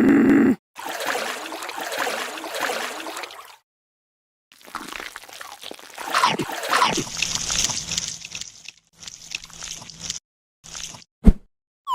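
Water sloshing and splashing in short pieces, each cut off abruptly into silence.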